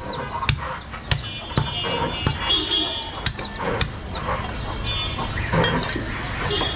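Heavy butcher's cleaver chopping goat meat on a wooden block: a string of sharp, irregular thuds, about six of them over the first four seconds or so.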